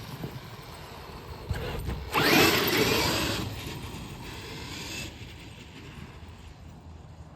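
Traxxas XRT electric RC monster truck's brushless motor whining as it accelerates hard about two seconds in, then easing off.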